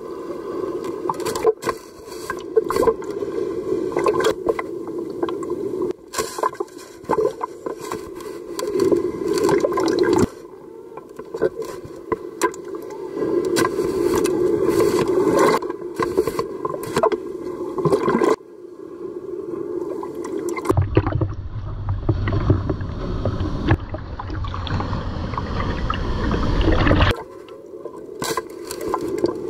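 Water sloshing and splashing against a waterproof camera housing at the surface of heavy shorebreak, with many sharp knocks and scrapes. About two-thirds of the way through, a deep rushing rumble of churning water lasts about six seconds.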